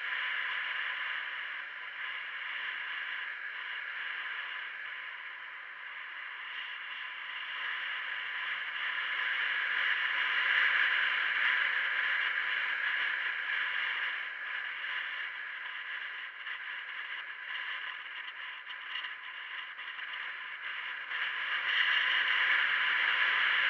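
Steady hiss of wind and road noise with a light rattle, picked up by a camera mounted on a moving vehicle. It grows louder about ten seconds in and again near the end.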